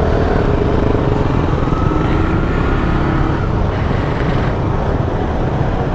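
Zontes motorcycle running steadily at riding speed: a low engine hum under heavy wind and road noise on the rider's microphone.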